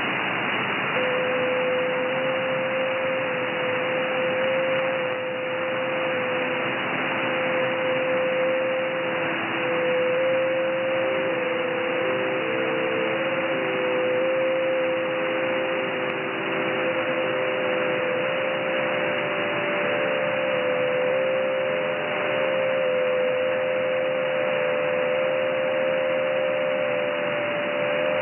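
Shortwave receiver audio in upper sideband from the 30-metre amateur band: a steady hiss of band noise, cut off above about 3 kHz. Over it, thin tones around 500 Hz hop between nearby pitches about every half second; these are JT9 digital-mode signals. A steady tone a little higher comes in about midway.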